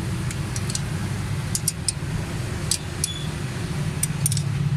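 Light metallic clicks and clinks of a ring spanner on the valve-tappet adjuster locknuts of a Suzuki Alto 1000cc engine's rocker arms, during a tappet adjustment. They come as scattered short ticks, in small clusters around the middle and near the end, over a steady low drone.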